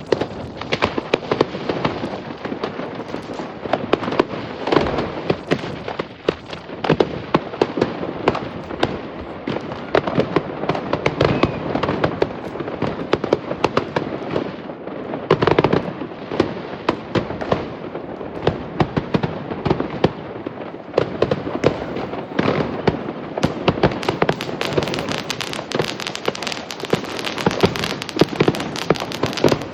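Fireworks going off without pause: a dense run of bangs and crackles, many per second, with louder clusters now and then.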